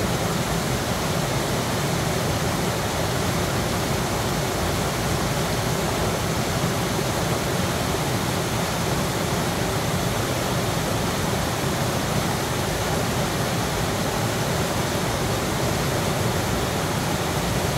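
River water rushing over and around rocks: a steady, unbroken noise.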